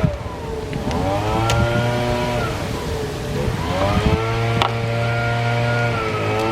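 A motor running, its pitch dropping and rising again about every three seconds, over a steady low hum.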